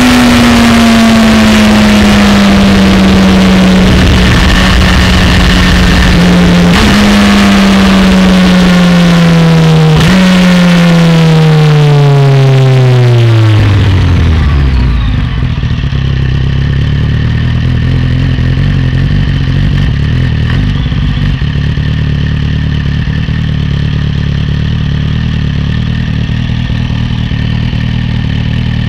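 Motorcycle engine heard from on board while slowing on the overrun: its note falls steadily, twice jumps back up with a downshift, and sinks away as the bike comes to a stop. Wind rush over the bike fades with it, and for the second half the engine idles steadily.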